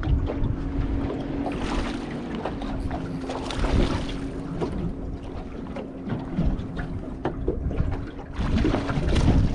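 Wind buffeting the microphone on a small boat at sea, with water slapping the hull, scattered light knocks and a steady low hum underneath.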